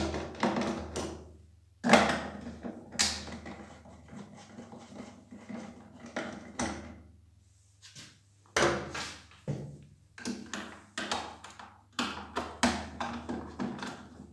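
Irregular clicks, knocks and scrapes of a pressure washer's plastic housing being handled while its Torx screws are undone, with one sharp knock about two seconds in.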